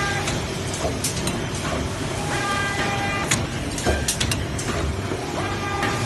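ZK-660D puzzle box making machine running, a steady mechanical clatter with sharp knocks. A pitched tone sounds for about a second at the start and again about two seconds in, and returns near the end.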